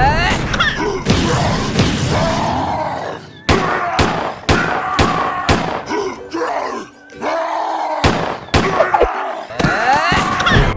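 Groaning and crying-out voices without words, broken by sharp hits: a run of five thumps about half a second apart a few seconds in, then a few more near the end.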